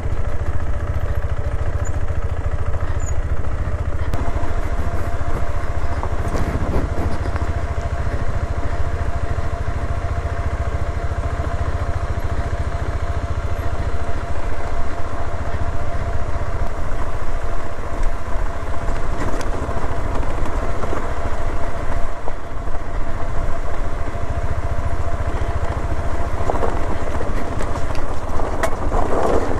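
A KTM 390 Adventure's single-cylinder engine runs steadily as the bike rolls down a loose, rocky dirt track. It gets a little louder about halfway through.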